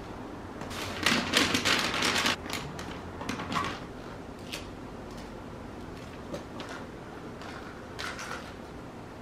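Wrapping paper rustling and crinkling as a present is folded and wrapped by hand, in short bursts, loudest about one to two and a half seconds in, with softer crinkles later.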